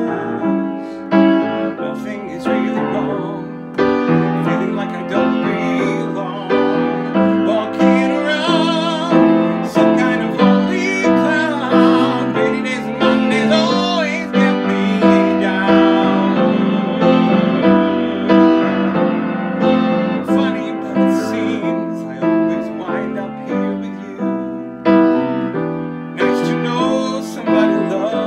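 Piano playing a slow ballad accompaniment in steady chords, with a man singing over it, his voice wavering with vibrato in the middle stretch.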